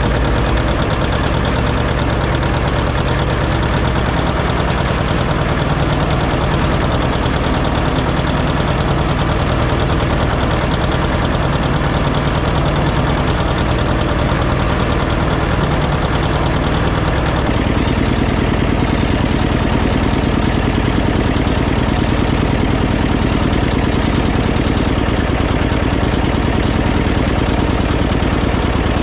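John Deere 730's two-cylinder diesel engine running steadily under load while pulling a culti-mulcher. Its low, even beat changes character abruptly about two-thirds of the way through.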